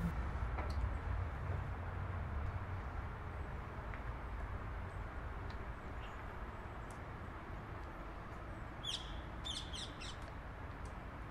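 Outdoor ambience with a steady low rumble, and a bird giving a quick run of about five high, sharp chirps about nine seconds in.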